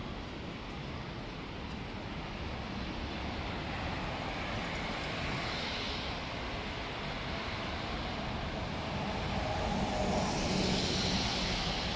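Road traffic on a city street: a steady hum of passing cars, with one vehicle swelling past about halfway through and a louder one near the end.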